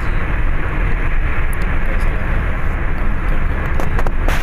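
Steady road and wind noise heard from inside a moving vehicle, a low rumble with a few short clicks about four seconds in.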